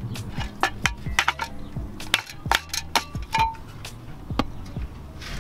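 Irregular sharp metallic clicks and clinks of a ratchet and tools working the clutch pressure-plate bolts on a Miata's flywheel, over background music.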